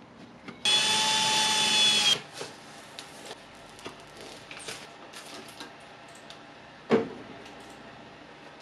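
Electric drill running steadily for about a second and a half, drilling through a clear plastic record blank. Light clicks and rustles follow, and one sharp knock near the end.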